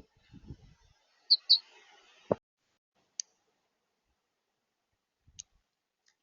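Two short high bird chirps in quick succession about a second and a half in, picked up at a backyard bird feeder. Around them are a few sharp clicks and soft thuds.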